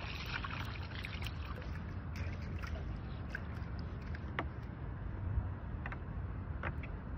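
Steady low wind rumble on the phone's microphone, with light water lapping and scattered faint clicks.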